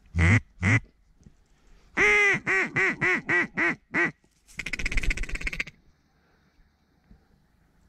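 Loud, close mallard-hen quacking: two short quacks, then a cadence of about seven quacks in which the first is the longest, then about a second of rapid chattering like a feeding chuckle.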